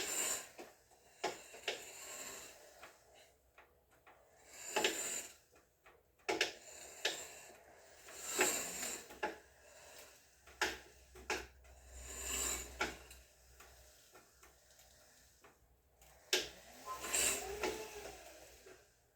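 Permobil F5 Corpus VS power wheelchair's drive motors and gearing, making clicking and grinding noises in spells every few seconds as the chair zigzags back and forth, with a brief wavering whine near the end. The owner is unsure whether these noises mean something is wrong with the chair.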